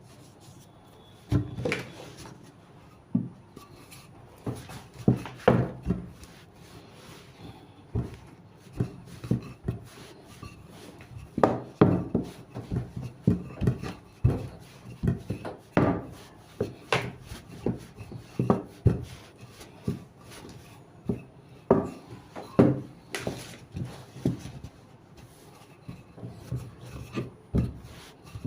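Chin chin dough being worked by hand on a wooden board: irregular soft knocks and rubbing, one to three a second.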